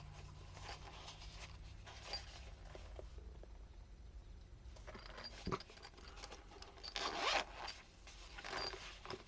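The Velcro closure of a fabric knife storage pouch being pulled open, with quiet handling rustle, a light click about five and a half seconds in, and two short tearing bursts near the end.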